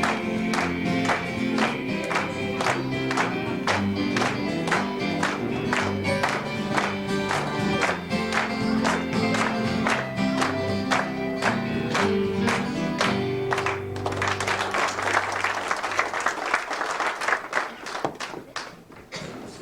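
Gospel band's instrumental ending: guitar, bass and piano playing a steady beat of about two strokes a second, with no singing. About fourteen seconds in the music stops and the congregation applauds.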